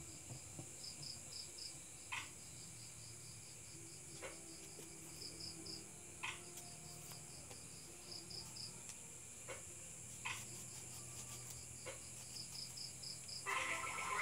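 Crickets chirping in short repeated trills over a steady high insect hiss, with a few short scrapes of a knife cutting into a lemon's peel every couple of seconds.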